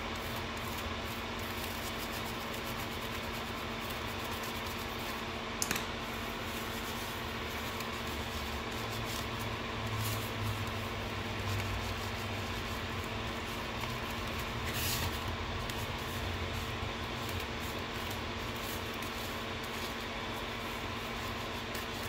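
A steady hum and hiss runs under faint rubbing and handling as a paper tissue wipes flux residue off the circuit board of an instrument cluster. There is a single sharp click about six seconds in.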